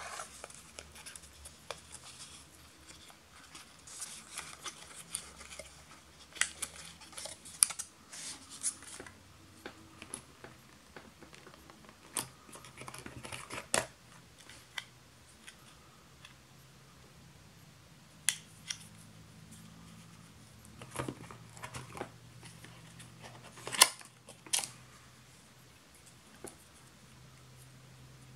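Hands handling a smartphone's retail packaging: cardboard tray and inserts rubbing and scraping during the first several seconds, then sparser sharp clicks and taps as the cable and charger are lifted out.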